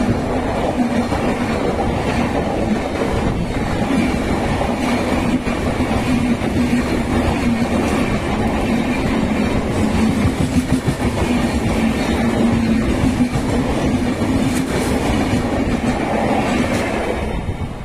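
Two express trains crossing: the rush and clickety-clack of the passing train's coaches on the adjacent track, heard from the open door of the other moving train, over a steady low hum. The noise falls away near the end as the passing train's last coach goes by.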